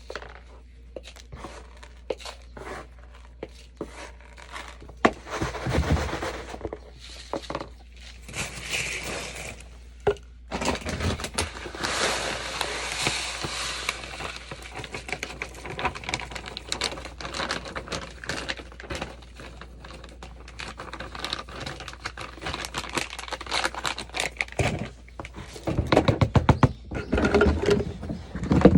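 Scraping, crinkling and short knocks of cat litter being scooped and handled, in irregular stretches.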